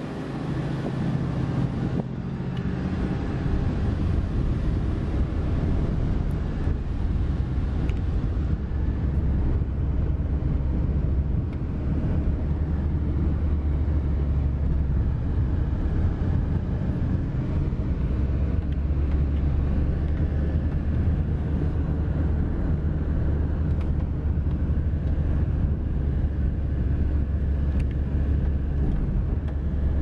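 Car engine and road noise heard from inside a moving taxi: a steady low drone, a little quieter for the first couple of seconds.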